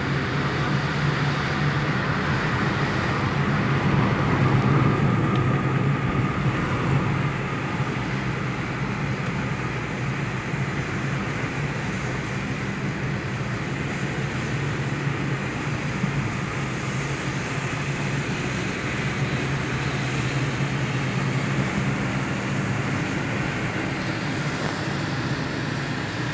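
Steady engine drone and tyre noise on a wet road, heard from inside a moving car's cabin. It swells a little a few seconds in.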